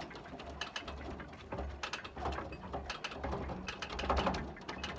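Malfunctioning railroad crossing gate mechanism clicking and rattling irregularly over a low uneven hum as the gate arm jitters back and forth with no train present.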